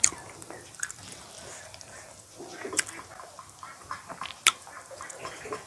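Close-miked eating by hand: wet chewing and mouth smacks, with three sharp smacks standing out at the start, near the middle and about three-quarters through.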